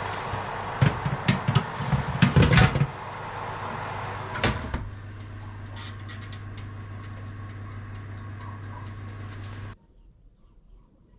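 Electric wall oven running with a steady hum while a dish is pushed in onto the metal rack with a run of clatters and knocks. The oven door then shuts with a single knock, and the hum goes on until it cuts off suddenly shortly before the end.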